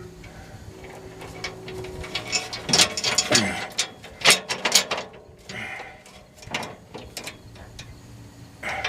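Steel chain links clinking and rattling in irregular clicks as the chain is handled and wrapped around a truck's exhaust pipe.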